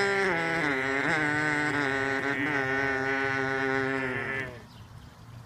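A sustained, chant-like droning tone with a steady low note beneath and small pitch steps, fading out about four and a half seconds in.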